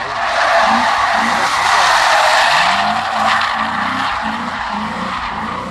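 V8-swapped BMW E36 drifting, tyres squealing and skidding the whole time, the loudest sound. Under the squeal the 4.4-litre V8's revs rise and fall several times as the driver works the throttle.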